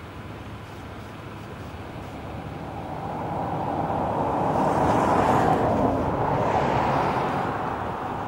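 A vehicle passing by: its noise swells over a few seconds to a peak near the middle, then fades away again.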